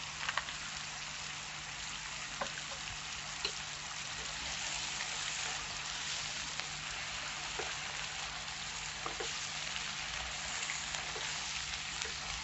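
Chanterelle mushrooms, bacon and peppers sizzling steadily in a frying pan, still cooking off the water from the mushrooms. A few light spatula scrapes and taps come as they are stirred.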